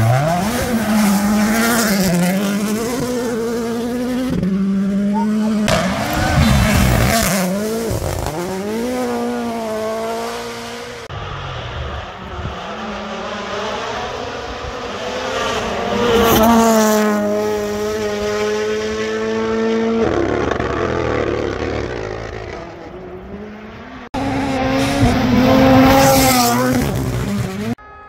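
Toyota GR Yaris Rally1 rally car passing at full attack on several stage runs, its turbocharged engine climbing in pitch through the gears and dropping sharply at each shift or lift.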